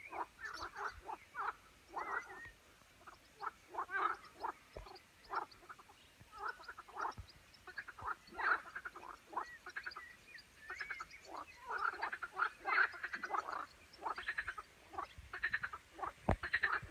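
A chorus of frogs croaking: many short, fast-pulsed rattling calls overlapping almost without a break.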